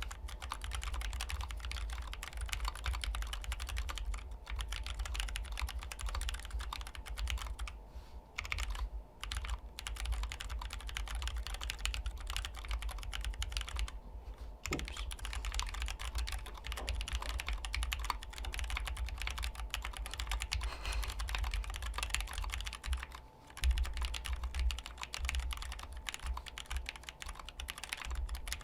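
Typing on a Duck TCV3 custom mechanical keyboard with lubed mid-tactile Franken switches (purple Yok Panda stems in Invyr housings) on an aluminium plate in an aluminium case. A steady, fast run of keystrokes with a few brief pauses.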